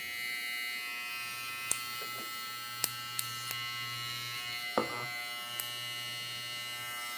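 Jucai Minicandy JC-06 hair clipper running steadily, a constant electric whine with a steady hum under it, and a few light clicks from handling.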